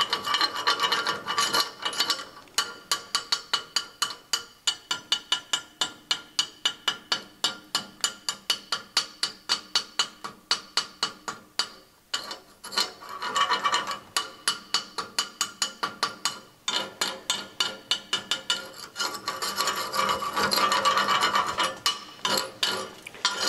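Slag being cleaned off a fresh 6010 stick weld on steel plate: a steel hand tool scraping along the bead, with long runs of quick, even taps, about five a second, from a couple of seconds in until around twelve seconds, and again from about fourteen to nineteen seconds.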